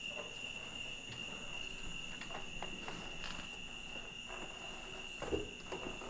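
Crickets trilling steadily in a high, even tone, with a few faint knocks and clicks, one a little louder about five seconds in.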